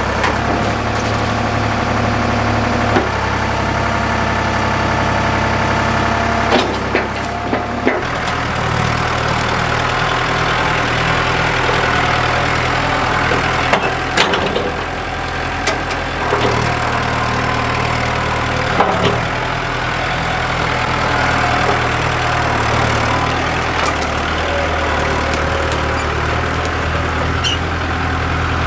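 Tractor engine running steadily, its note changing about eight seconds in, with a few sharp knocks and snaps over it.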